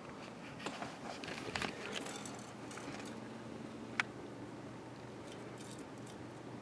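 Soft rustling and scratching in short strokes for the first couple of seconds, then a single sharp click about four seconds in, over a faint steady hum.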